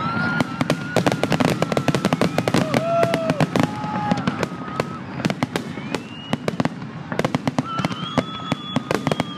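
Aerial fireworks finale barrage: a dense run of shell bursts, several bangs a second, with long high whistling tones held over the crackle.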